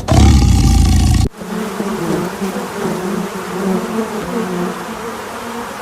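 A loud, deep animal roar cuts off about a second in and gives way to a steady insect buzz, a droning hum with wavering overtones like bees or flies.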